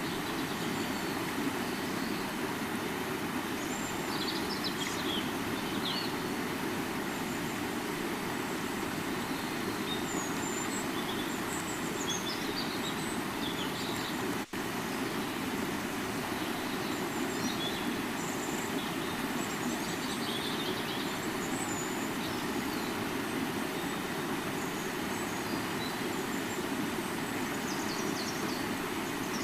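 River water flowing in a steady, even rush, with faint short high chirps scattered through it. The sound cuts out for an instant about halfway through.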